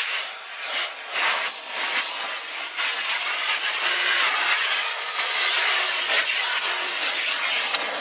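Henry Numatic vacuum cleaner running, its nozzle sucking and rubbing over a car's carpet floor mat. A hiss of rushing air dips and surges in the first couple of seconds, then steadies.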